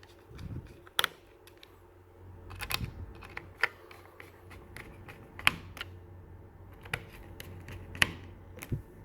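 Scattered sharp clicks and taps of a screwdriver working small screws into a laptop's metal chassis: the spring-retained screws holding the hard drive in an HP ZBook G3 being tightened.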